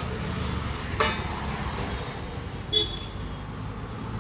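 Street traffic: a motor vehicle's engine running with a steady low hum, with a few short sharp clicks at about one second in and near three seconds.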